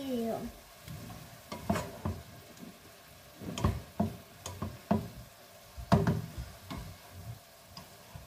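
Wooden spatula stirring and tossing bean sprouts and vegetables in a frying pan, with irregular scrapes and knocks against the pan, and the stir-fry sizzling underneath.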